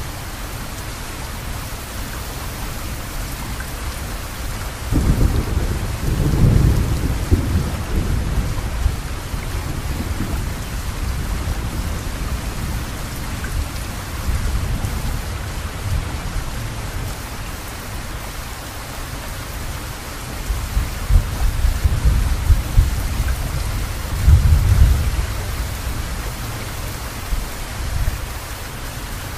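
Steady hiss of rain, with two spells of low rumbling: one about five seconds in and another around twenty-one to twenty-five seconds in.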